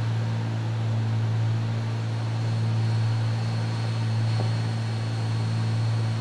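Steady drone of a Cessna 310's twin piston engines and propellers heard inside the cockpit, a constant low hum with hiss over it and no change in pitch.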